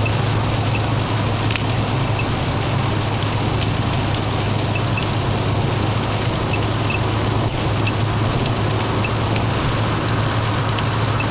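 Steady road and engine noise of a car driving on an expressway, heard from inside the cabin, with a constant low hum.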